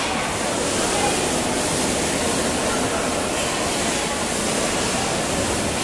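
Steady ambient din of a large dining hall: a dense, even wash of noise with indistinct voices mixed in.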